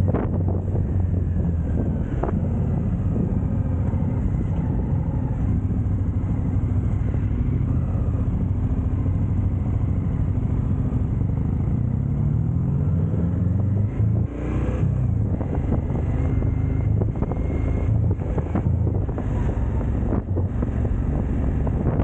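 KTM two-cylinder motorcycle engine running on the road. Its pitch rises about twelve seconds in, cuts out briefly near fourteen seconds, then settles back to steady running.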